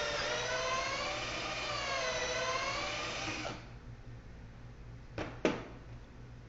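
Cordless drill running at top speed, boring a pocket hole through a Kreg jig's guide into wood; its whine dips and rises in pitch as the bit bites and is eased back to clear sawdust, then stops about three and a half seconds in. Two sharp knocks follow near the end, the second the loudest sound.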